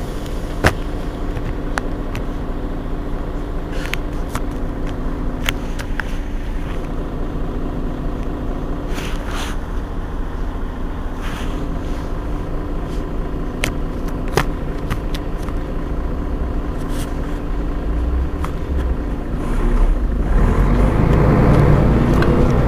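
Mercedes-Benz Citaro G C2 articulated city bus standing with its engine idling, a steady hum with several sharp clicks. Near the end the running noise swells and grows louder.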